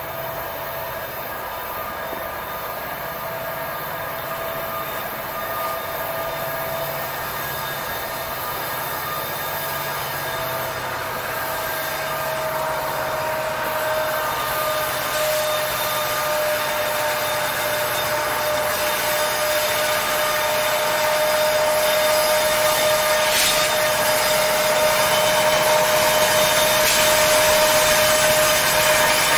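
Freight train's autorack cars rolling past with a steady high-pitched wheel squeal. The sound grows gradually louder toward the end as the two EMD SD70ACU rear helper locomotives come alongside.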